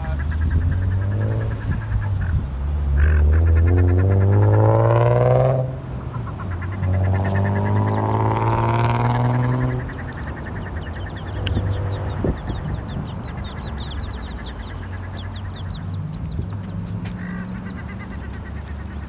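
Two cars drive off one after the other, each engine rising in pitch as it accelerates away. After them, ducklings peep in quick repeated high chirps.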